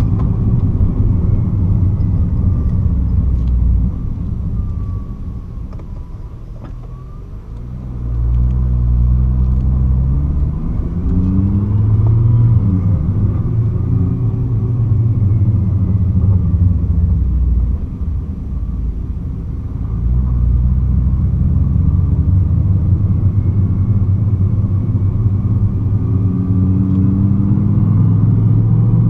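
2009 Nissan GT-R's twin-turbo V6 and drivetrain at low speed, the throttle repeatedly opened and closed: the engine note rises and falls, easing off twice and picking up again, with a faint gliding whine above it. This is the off-throttle engine-braking condition in which the owner hears a shuddering drivetrain noise that appeared after the bell housing and driveshaft were replaced.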